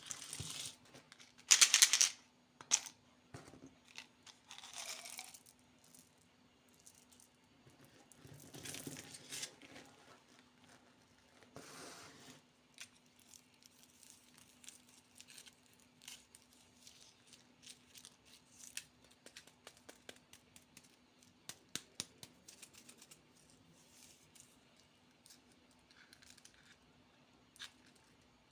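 Candy packaging being torn open and crinkled in several rustling bursts, the loudest near the start, followed by many light clicks and taps as the candy is handled.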